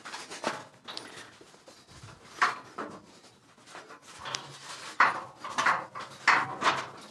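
Irregular knocks, clanks and scuffs of boots and hands against a metal scaffold as a person climbs down through its platforms, about eight separate hits, the loudest about two and a half seconds in and around five seconds in.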